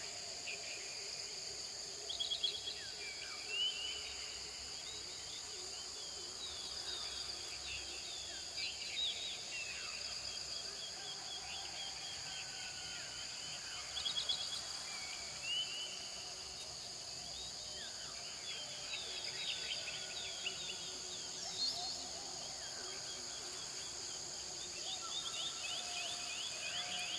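Several birds chirping and trilling in short bursts over a steady, high-pitched insect chorus.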